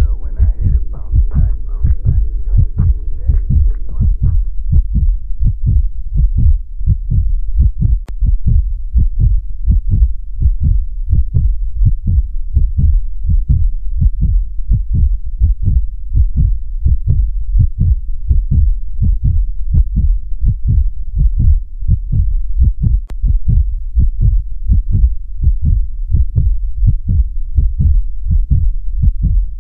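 Heartbeat sound effect: a steady, regular beat of low thumps. A low held tone fades out about four seconds in.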